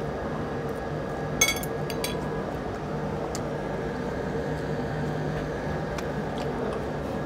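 A metal utensil clinks sharply against a dish once, about a second and a half in, with a few lighter taps of cutlery on tableware over a steady low hum.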